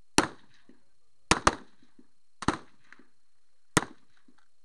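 High-power rifle shots on a match firing line: five sharp reports at irregular intervals, two of them only a fraction of a second apart.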